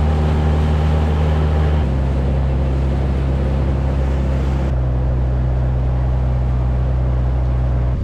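Outboard motor on a small boat running steadily under way, a low droning hum with water and hull noise. The tone changes abruptly about two seconds in and again near five seconds.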